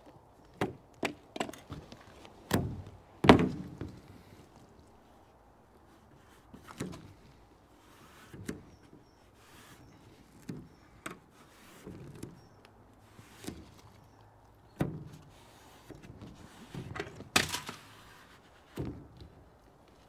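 Irregular taps and knocks of a twin-wall polycarbonate sheet being handled and its ends taped on a wooden workbench. The loudest is a thud about three seconds in, and a longer rasp near the end fits adhesive tape being pulled off its roll.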